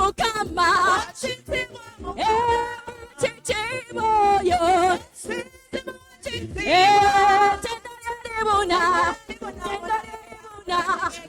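A woman singing a worship song with little accompaniment, in phrases with wavering sustained notes; the longest is held about halfway through.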